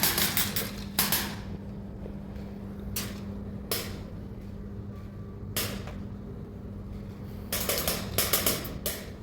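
Airsoft guns firing: a rapid string of sharp cracks at the start, a few single shots through the middle, and another rapid string near the end, over a steady low hum.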